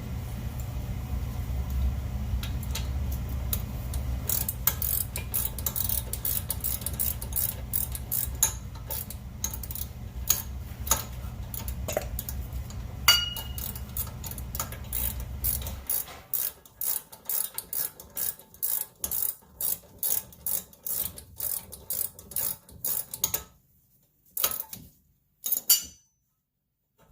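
Hand ratchet clicking in quick runs of strokes while backing out the front brake caliper bracket bolts. A steady low hum underneath stops about sixteen seconds in.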